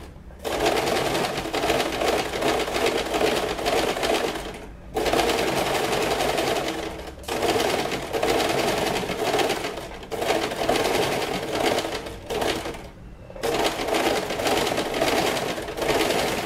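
Domestic electric sewing machine running a loose straight stitch through thin fabric. It runs in stretches of a few seconds, stopping briefly several times in between.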